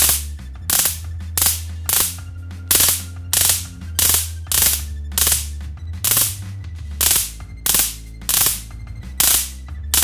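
High-voltage spark from a Chinese boost module arcing between wire electrodes through a candle flame. It comes in short, sharp discharges about one and a half times a second, each one a brief pulse.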